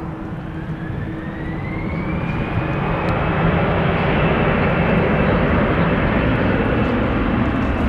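Airbus A330-200's twin jet engines spooling up on the landing rollout: a whine rising in pitch over a broad rush that grows louder through the first few seconds and then holds steady.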